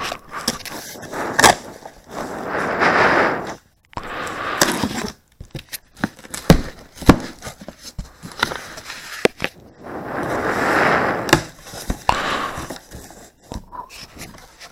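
Fireworks packages and boxes being handled and rummaged through: stretches of rustling and crinkling packaging, with scattered sharp knocks and taps as items are moved and set down.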